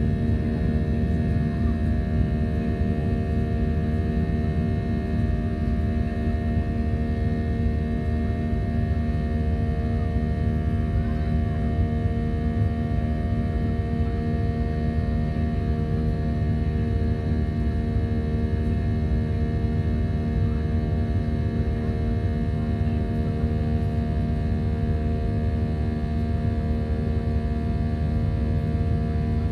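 Airliner engines and airflow heard inside the cabin during the climb after takeoff: a steady loud drone with several steady whining tones held above it.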